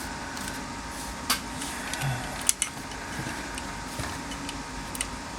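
A few light clicks and taps of small metal and plastic parts being worked into place inside a GM tilt/telescoping steering column as the turn signal lever is fitted to its switch, the sharpest click about two and a half seconds in, over a steady room hum.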